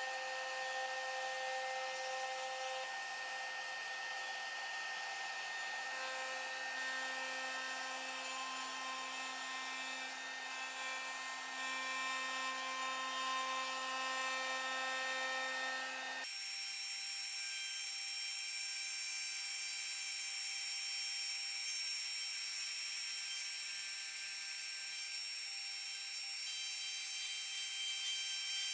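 CNC router spindle running with a straight router bit milling into a dense carob-wood block: a steady high-pitched whine made of several tones. About sixteen seconds in the sound changes abruptly, the lower tones dropping away and leaving a thinner high whine.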